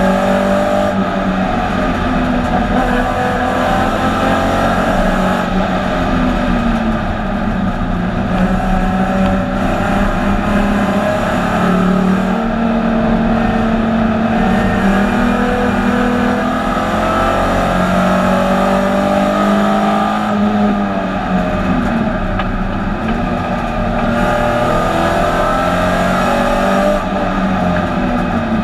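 Alfa Romeo 156 GTA race car's 3.2-litre V6 engine under racing load, heard from inside the stripped cabin. Its pitch climbs over several seconds and then drops, again and again, as the car accelerates through the gears and lifts or brakes for corners.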